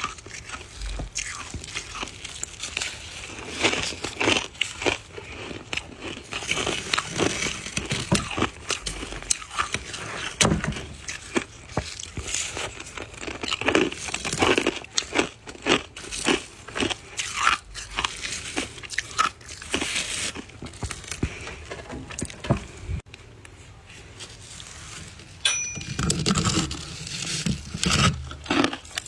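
Close-up biting and chewing of soft white freezer-frost ice, a dense run of crisp, uneven crunches that eases off briefly near the end.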